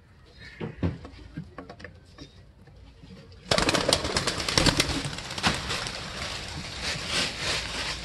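Domestic pigeons taking off from a window ledge: after a few faint clicks, a sudden loud clatter of flapping wings starts about three and a half seconds in and keeps on.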